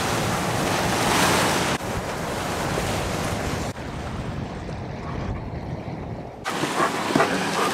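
Wind blowing over the microphone and sea water rushing past a sailboat's hull. The noise changes abruptly a few times.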